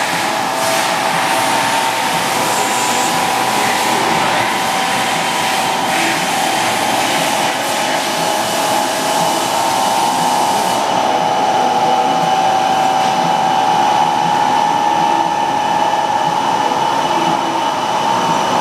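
Steady whir of machine-shop machinery running, with a held whine under it; the higher hiss drops away about eleven seconds in.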